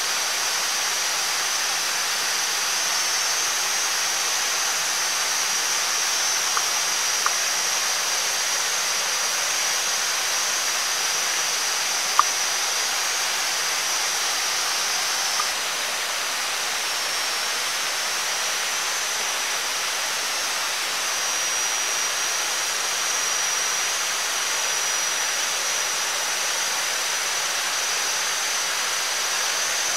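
Steady rushing background noise with a high, even whine over it. A few faint clicks from a knife on a wooden cutting board, the loudest about twelve seconds in.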